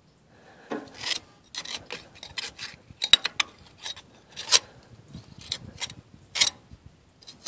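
Hand scraper scraping packed, oily dirt and old mouse-nest debris off a garden tractor's frame and transaxle: a series of short, irregular scrapes with pauses between strokes.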